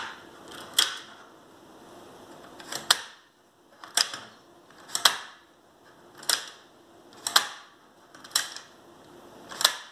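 A 3.5-inch floppy disk being rocked by hand in a Chinon FB-354 revision B drive. Its mechanism gives sharp clicks about once a second, the sign of a little play in how the disk is held.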